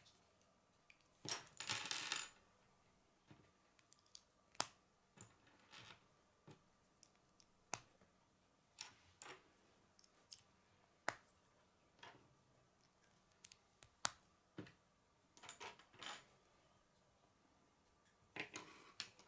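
K'nex rods clicking into plastic K'nex connectors by hand: single sharp snaps a few seconds apart, with short bursts of plastic pieces rattling and rubbing about a second in and again near the end.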